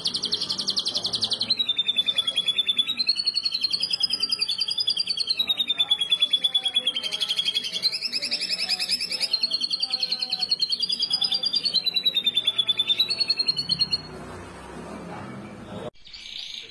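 Domestic canary singing a long, very fast trill (a 'roll') that rises and falls in pitch. It stops about fourteen seconds in, leaving fainter sounds, with a short break near the end.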